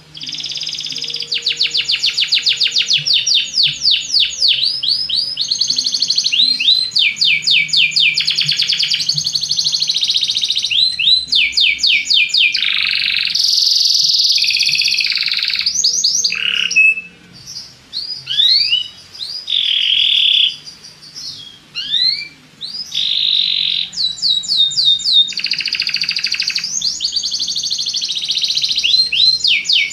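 Belgian canary singing: long runs of rapid trills and quickly repeated down-sweeping notes, with a stretch of shorter, broken phrases about midway.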